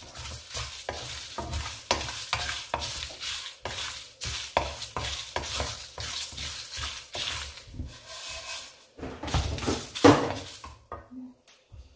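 Whole spices and dried red chillies being stirred as they dry-roast in a pan: a quick, irregular run of scraping strokes with a light sizzle. There is one louder knock about ten seconds in, and the stirring stops shortly after.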